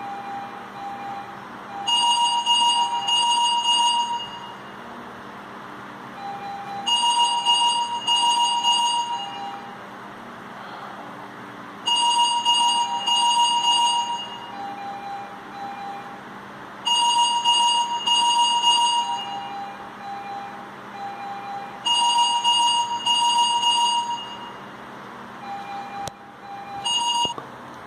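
Anesthesia patient monitor alarm beeping: a two-part burst of high beeps repeating about every five seconds, with softer, lower single beeps, like a monitor's pulse tone, going on in between.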